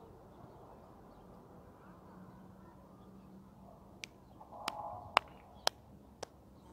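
Five sharp hand claps about half a second apart, starting about four seconds in, over a low, steady outdoor background.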